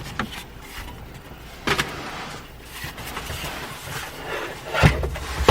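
Plastic dash trim around the Jeep Wrangler TJ's A/C switch being pried up: scraping and light clicks, then a heavy thump near the end.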